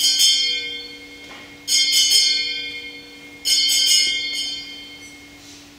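Hand-held altar bells rung during Mass: three rings about two seconds apart, each a quick jangle of bright, high strikes that fades away.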